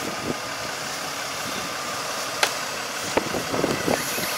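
Truck-mounted crane's diesel engine running steadily. A sharp click comes about halfway through, and a cluster of clicks and knocks follows near the end.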